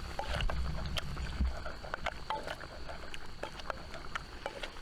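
A pestle pounding dried chilli peppers in a mortar into a paste, with irregular sharp knocks and crunches. A faint steady high tone sits underneath.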